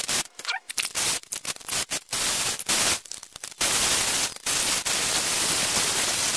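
A reciprocating saw (Sawzall) cutting through a metal fuselage tube in short, choppy spurts. A little past halfway it gives way to an angle grinder grinding steadily on the cut tube stub.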